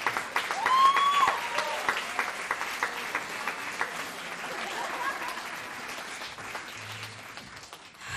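Audience applauding after a spoken-word piece, loud at first and dying away toward the end, with one short rising-and-falling call from the crowd about a second in.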